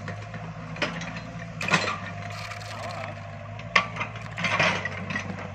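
Yanmar mini excavator's diesel engine running steadily with a faint whine, broken by a few sharp metallic knocks and scrapes as it digs.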